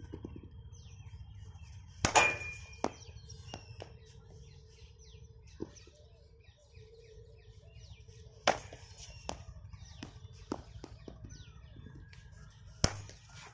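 Cricket bat striking the ball in net practice: three sharp knocks about two, eight and thirteen seconds in, the first the loudest, with smaller clicks between. Birds chirp throughout over a low steady rumble.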